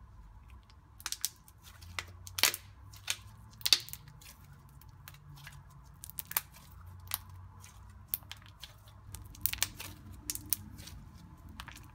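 Pink homemade slime squeezed and kneaded in the hands, giving irregular sharp clicks and sticky pops, the loudest about two and a half and three and a half seconds in, over a faint steady low hum.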